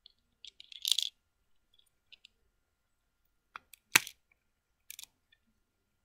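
Lego plastic pieces clicking and clacking as a small brick-built fridge is handled: a quick cluster of small clicks about a second in, then a few single sharp clacks, the loudest about four seconds in.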